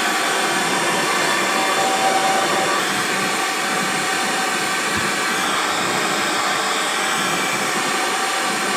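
Handheld hair dryer running steadily on wet hair: a loud, even rush of air with a faint motor whine in it.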